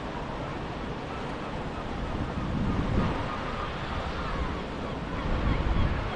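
Wind buffeting the microphone over a steady outdoor rush, with stronger gusts about halfway through and near the end.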